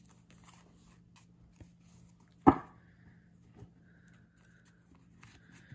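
Quiet handling of a paperback guidebook and tarot cards on a cloth-covered table, with faint rustles, and one short, loud sound about two and a half seconds in.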